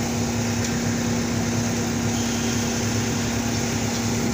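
Skid steer engine running steadily with a constant hum while its forks hold up one side of the bulldozer's track under heavy load.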